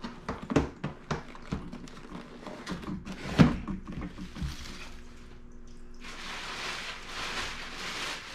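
Cardboard shoebox being handled and set down: a run of taps and knocks with one louder thump about three and a half seconds in. From about six seconds in, steady rustling as bags are rummaged through.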